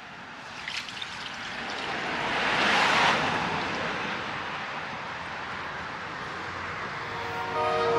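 Dirty water poured out of a Stihl wet-and-dry vacuum canister onto concrete: a splashing gush that swells about three seconds in, then a steady pour and trickle.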